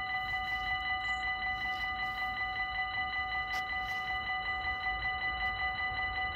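Railway level-crossing warning bell ringing rapidly and evenly, about four strokes a second, as a train approaches.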